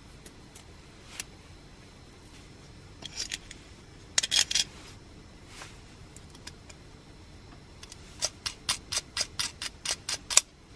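Small metal parts clicking against a thin titanium lid as a little bolt, metal strip and nut are fitted by hand into its pressure-adjusting hole. A few scattered clicks and a short cluster about four seconds in are followed near the end by a quick run of about ten sharp ticks.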